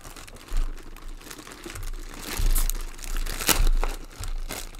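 Clear plastic wrapping crinkling and rustling as it is handled and pulled away, with a few louder crackles.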